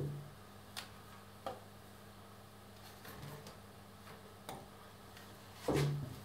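Scattered light clicks and taps of hands fitting small cable clamps and screws to a milling machine head, over a steady low electrical hum. A louder bump comes near the end as the camera is moved.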